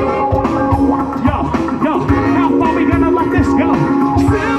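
Live rock band playing: electric guitar with bending notes over a steady drum beat.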